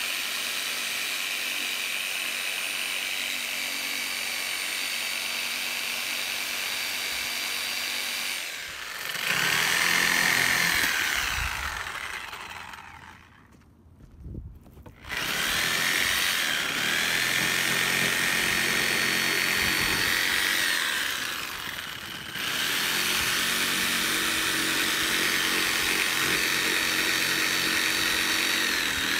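Corded Porter-Cable reciprocating saw with a Diablo 12-inch carbide pruning blade cutting through roots of a decaying tree stump at the dirt line: the motor runs in long stretches with a high whine that dips and recovers as the blade binds. It stops for about two seconds midway, with a few low thumps, then starts again.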